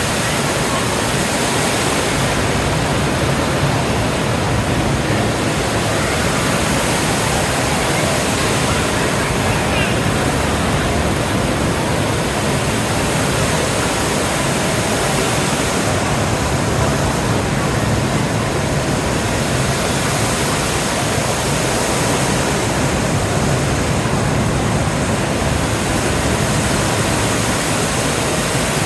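Steady, loud rushing noise of a moving boat: water and engine noise with wind on the microphone, unchanging throughout.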